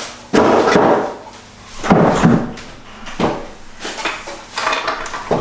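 Clunks and rattles of a metal roof crossbar and its mounting feet being handled and set against the car roof. There is a longer clatter just under a second in, then separate knocks every second or so.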